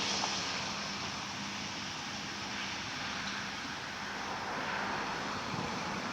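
Large diesel farm machinery running steadily under load, a constant engine hum with a broad hiss of machinery noise over it.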